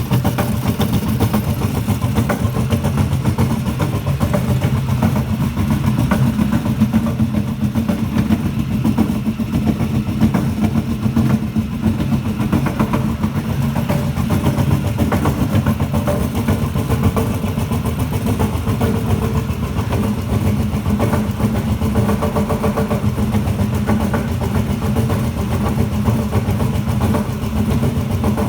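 Compressor running steadily with a rapid, even pulsing beat and no change in speed.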